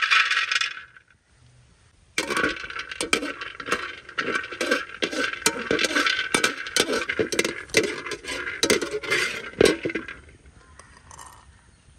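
Cashews and almonds clatter into a dry aluminium pot, poured in for about a second, to be roasted. After a short pause, a wire spider skimmer stirs them around the bare metal bottom in a dense run of clicks, rattles and scrapes that dies down near the end.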